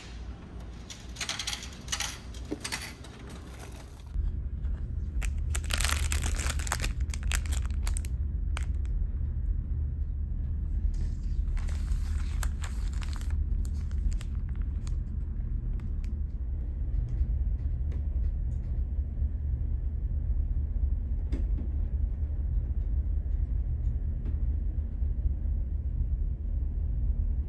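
Plastic bag crinkling as it is handled, in two spells about a second in after the rumble starts and again near the middle, over a steady low rumble of the ferry's engines that sets in about four seconds in.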